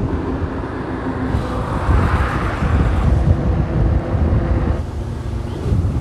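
Motorcycle riding at road speed: heavy wind buffeting on the microphone over a steady engine hum. The sound changes abruptly about five seconds in.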